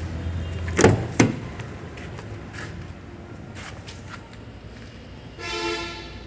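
Two sharp clicks about a second in as the Hyundai H-1 van's door latch is worked open. Near the end, a short car horn toot of about half a second.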